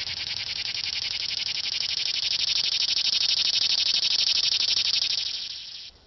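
Cicadas singing: a loud, dense, high-pitched buzz made of very rapid pulses, swelling a little midway and fading out near the end.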